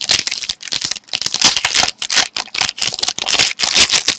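Trading cards and their packaging being handled, a quick irregular run of scratchy rustling and crinkling several times a second.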